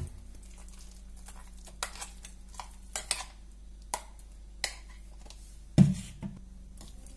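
A spoon scrapes and taps against a steel mixer-grinder jar while ground pea paste is emptied into a steel bowl. There are scattered light metallic clinks, and one heavier knock about six seconds in.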